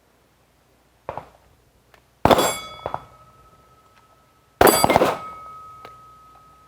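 Two pistol shots on a firing range, a little over two seconds apart, each followed by a long metallic ring that fades slowly. Faint clicks come between them.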